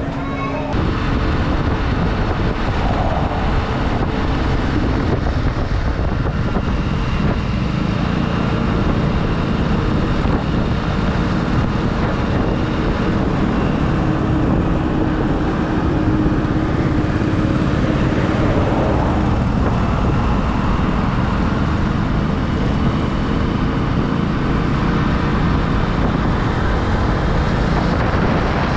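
Motorcycle cruising steadily on an open highway: a constant engine drone under a heavy rush of wind and road noise, with no change in pace.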